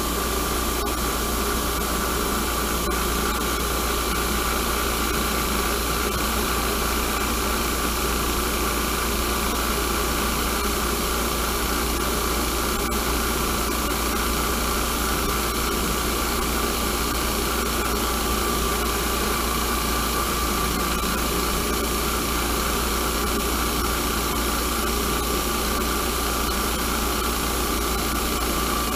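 Bench grinder running steadily with a constant hum, as a small steel lathe tool bit is held against its Harbor Freight Warrior grinding wheel to grind the bit's cutting angles.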